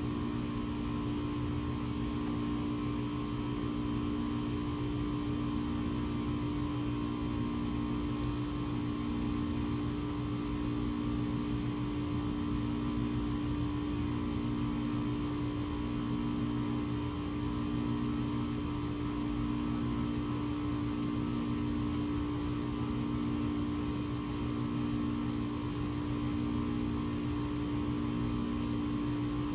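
A steady mechanical hum with a few held tones, one of them pulsing slowly and evenly about every second and a half.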